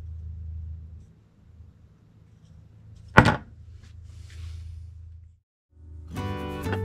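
A single sharp knock about three seconds in, as the battery management system (BMS) board is set down on the wooden workbench, over a low steady hum. Background music starts near the end.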